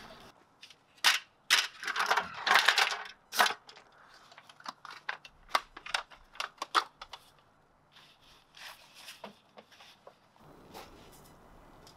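Camping gear being handled at a vehicle's open rear hatch: a quick run of clicks, knocks and rustling, loudest in the first few seconds, then a few lighter clicks and soft rustles.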